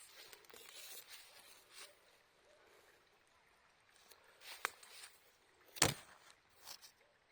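Rustling noise, then a few sharp clicks and one louder knock near the end, with a smaller knock after it.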